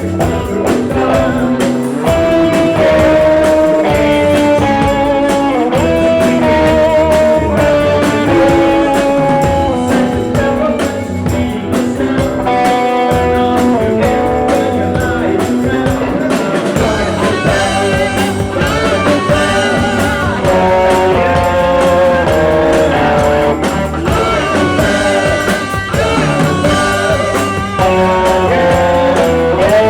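Psychedelic rock music: electric guitar, drums and singing playing without a break.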